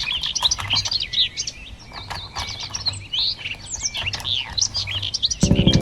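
Many birds chirping in quick overlapping calls. Near the end a motor starts, a loud steady rattling buzz.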